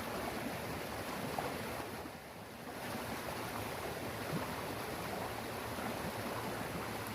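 Steady rushing of flowing stream water, easing briefly about two seconds in.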